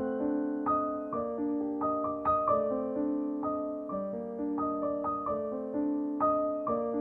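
Background music: a gentle piano melody with chords, the notes struck and left to fade.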